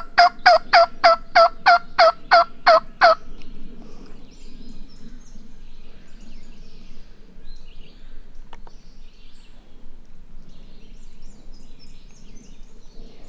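A turkey yelping: a run of about a dozen loud, evenly spaced yelps, about four a second, each note breaking from high to low. After about three seconds the yelps stop.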